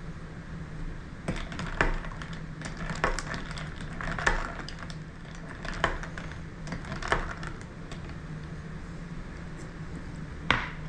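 A metal spoon stirring an iced drink in a tall glass: irregular clinks of spoon against glass and ice, several spread through the stirring, with a sharper one near the end.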